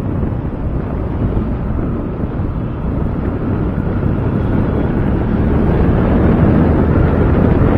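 Wind rushing over a collar microphone on a moving motorcycle, mixed with the low running of the Yamaha FZS V3's single-cylinder engine and road noise, growing steadily louder as the bike speeds up.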